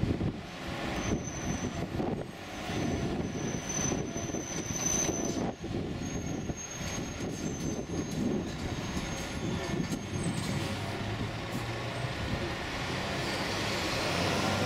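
Road traffic with a Scania semi-truck hauling a tipper trailer passing close by, its diesel engine and tyres rumbling. A thin high whine holds from about a second in until about ten seconds in, and the noise swells near the end.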